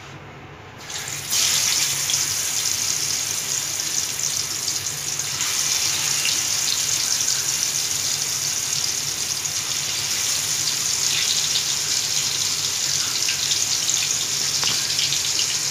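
Marinated chicken drumsticks sizzling as they fry in hot oil in a pan. The sizzle jumps up sharply about a second in, as the chicken goes into the oil, and then stays loud and steady.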